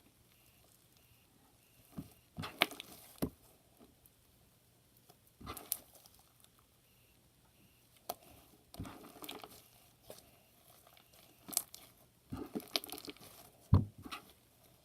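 Clear slime mixed with shaving cream being kneaded and stretched by hand: scattered sticky pops and crackles, with quiet stretches between.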